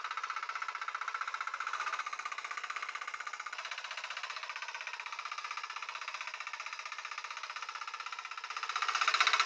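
Walk-behind mini tiller's small engine running under load as it tills the soil, with a rapid, even pulse. It grows louder near the end as the tiller works closer.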